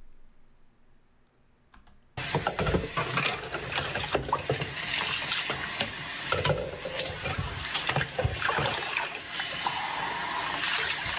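Kitchen tap running into a washing-up bowl of water while dishes are scrubbed with a sponge, with frequent knocks and clinks of crockery. It starts suddenly about two seconds in, after near silence.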